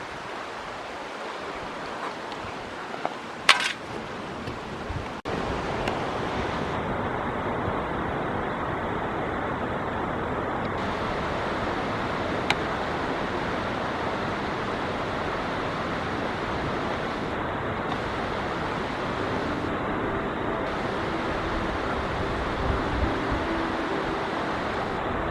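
Steady rush of flowing river water, louder from about five seconds in, with a sharp click or two.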